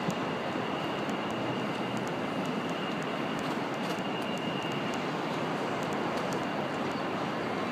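Distant jet airliner engine noise across the airport, a steady, even rushing rumble.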